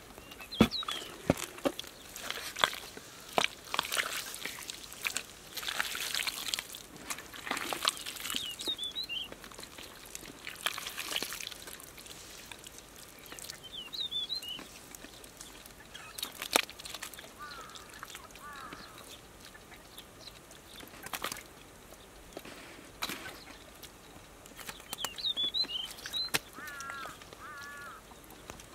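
Wet mud squelching and slapping as bare hands dig and scoop through thick pond mud, with a few sharp slaps, mostly in the first half. Short bird chirps come several times between.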